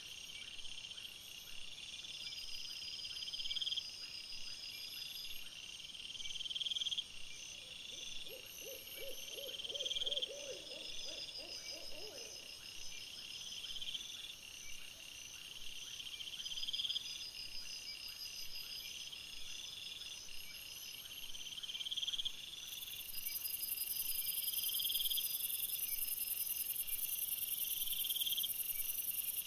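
Night insects chirping: a high, rising chirp repeating about every second and a half over fainter high trills, with a brief lower pulsed call about a third of the way in.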